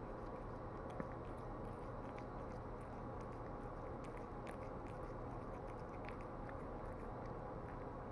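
Bengal cat chewing soft food: irregular small clicks and smacks of the jaws, over a steady low hum.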